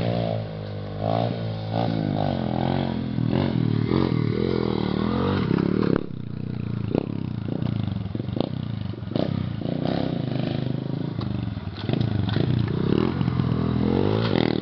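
Pit bike's small single-cylinder engine revving up and down as the bike is ridden, its pitch rising and falling again and again. A few sharp clacks come soon after the middle.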